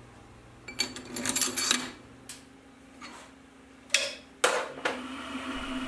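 Metal parts clinking and clicking as they are handled on the mill head, then a few separate sharp clicks. About four and a half seconds in, the DMM DYN4 AC servo spindle motor starts running with a steady hum.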